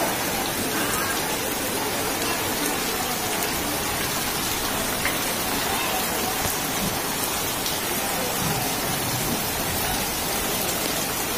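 Heavy monsoon rain falling steadily, a dense even hiss with no let-up.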